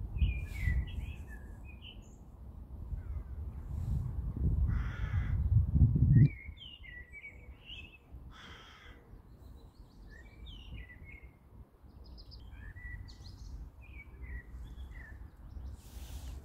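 Birds calling in many short, scattered chirps throughout, over a low rumble that builds and cuts off suddenly about six seconds in.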